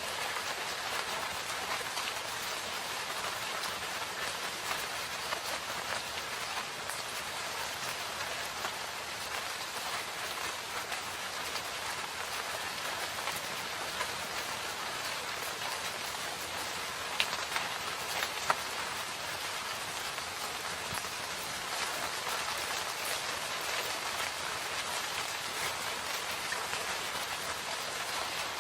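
Steady rain, a dense patter of drops, with two louder single drops a little past halfway.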